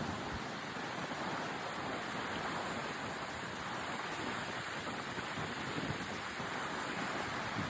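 Lake water washing steadily against the shore, small waves breaking in an even wash with a breeze.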